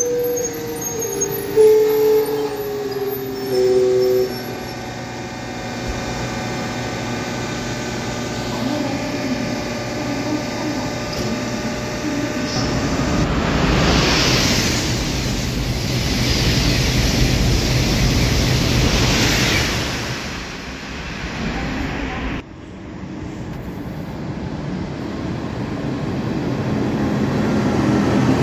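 KTX high-speed trains on a station track. A departing train's noise fades with a few falling tones in the first few seconds, and a long rush of rolling rail noise swells and dies away midway. After an abrupt cut, another KTX approaches and runs through at speed, its noise rising near the end.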